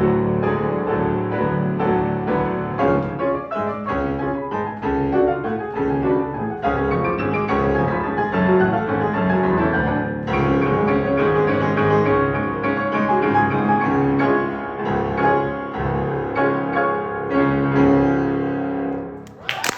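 Piano playing a classical-style piece thick with quick, rippling notes. A short burst of noise comes right at the end.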